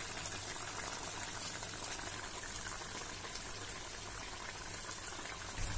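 Thick mustard fish curry boiling hard in an open kadai: steady bubbling with small pops throughout.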